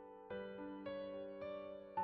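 Soft background keyboard music: a slow melody of sustained notes, a new note struck about every half second.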